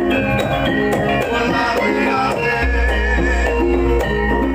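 Javanese gamelan music: drum and struck metal keys play a repeating melody of short notes, and a deep low note comes in about halfway through and holds.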